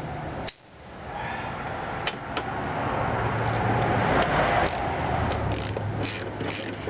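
A socket ratchet clicking in quick, even strokes near the end as the scooter's front axle nut is run down, with a few single clicks before it. A steady rushing noise with a low hum swells and fades underneath.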